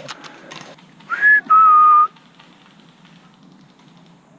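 Two loud whistled notes, a short rising one and then a longer steady lower one. A few faint clicks come near the start.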